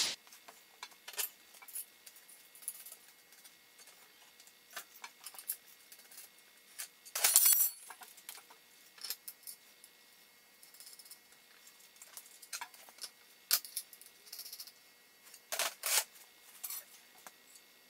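Metal clinks and taps of swivel casters, nuts and washers being handled and set onto a flat steel base on a steel bench top: scattered sharp clicks, with a louder clatter about seven seconds in and two more near the end.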